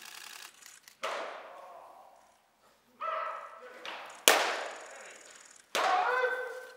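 Baseballs smacking into catchers' mitts in a bullpen, several sharp, echoing pops every second or two, the loudest about four seconds in. Short shouted calls are mixed in between them.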